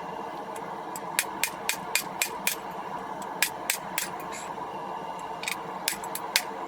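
Hand hammer striking hot steel on an anvil, in quick runs of about four blows a second with short pauses between, over the steady running noise of a gas forge burner.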